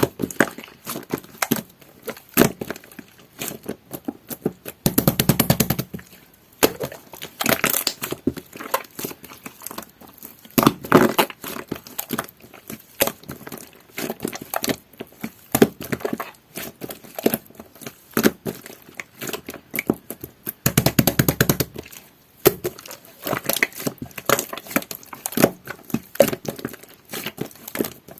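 Jelly-textured slime being squeezed and poked by hand, giving a continual run of wet clicks and small pops. Thicker flurries of crackling come about five seconds in and again around twenty seconds in.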